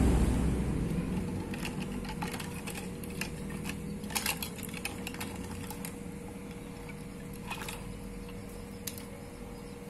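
Water in a plastic basin settling after a catfish is dropped into it, dying away over the first second or so. Then it is quiet, with a few scattered faint clicks and a faint steady hum.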